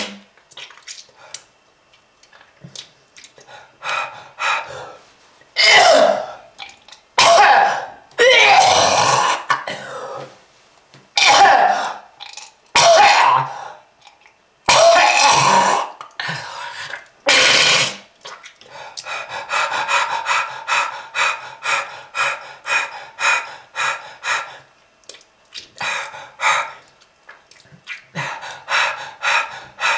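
A person coughing in hard, hacking fits: several long, harsh coughs through the first half, then a long run of short, quick hacks about three a second. It is a smoker's cough from lung disease.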